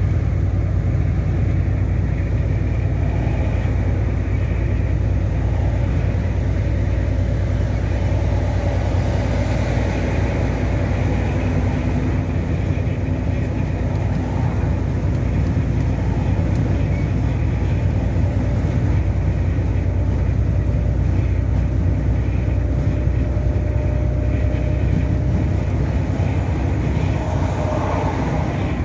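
Steady low drone of a lorry's engine and tyres at motorway speed, heard from inside the cab.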